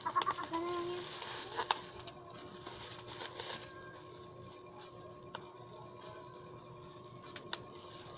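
Plastic packaging rustling and crinkling as items are unwrapped and handled, with scattered light clicks, for about the first three and a half seconds. After that it goes quieter, with only a few isolated clicks over a faint steady hum.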